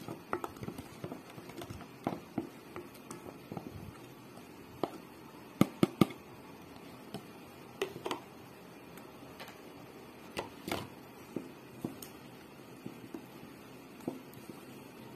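A spoon stirring flour into a wet bread-dough mix in a stainless steel bowl, with irregular clicks and knocks of the spoon against the bowl. Three sharp knocks come close together about six seconds in.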